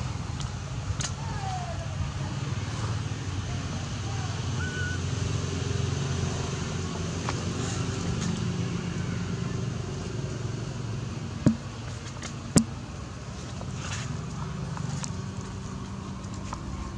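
A car engine running steadily, a low hum that eases off slightly after about ten seconds. Two sharp clicks come about a second apart, some two-thirds of the way through.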